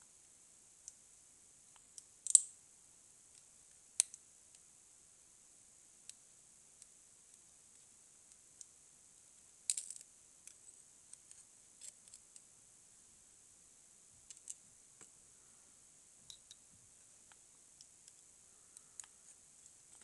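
Scattered light metallic clicks and taps from a Russwin lock cylinder and its small parts being handled, with the sharpest clicks twice in the first few seconds and a short cluster about halfway through.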